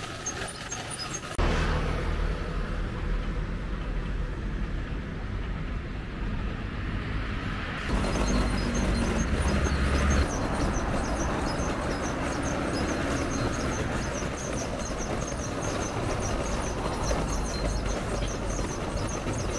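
Steady road noise of passing traffic with a strong low rumble, changing abruptly about a second and a half in and again around eight and ten seconds in. A faint, rapid high-pitched ticking runs through the second half.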